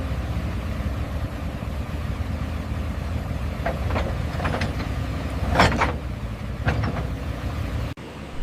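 A steady low vehicle-engine rumble with a handful of sharp knocks about halfway through, the loudest one near the middle; the rumble cuts off abruptly shortly before the end.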